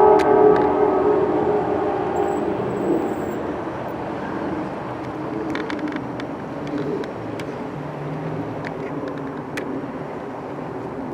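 Train horn of an Amtrak GE P42DC locomotive dying away in the first second or two, then the passenger train's rumble slowly fading as it rolls away, with a few sharp clicks.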